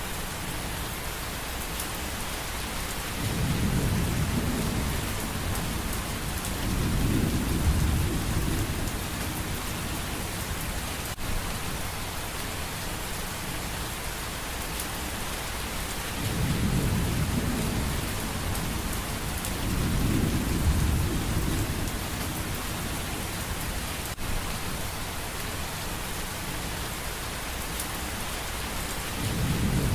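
Steady rain hiss with low rumbles of thunder that swell and fade five times, mostly in pairs a few seconds apart.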